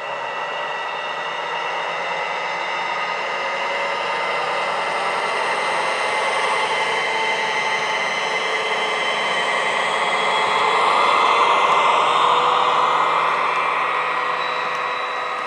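Recorded Class 68 diesel locomotive engine sound played by an ESU LokSound decoder through an ESU speaker inside a Dapol model locomotive, running as the model hauls its wagons. The engine sound swells steadily, loudest about two-thirds of the way through, then eases slightly.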